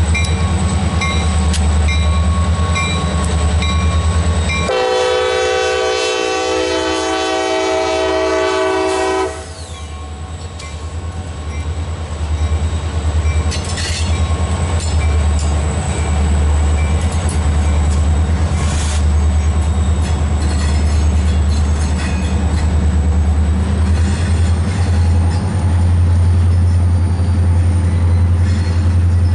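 Freight train rolling past: diesel locomotive engines running with a low rumble and regular wheel clicks, then a multi-note locomotive horn blows once, held for about four and a half seconds starting about five seconds in. After it the freight cars roll by with a steady rumble and clickety-clack.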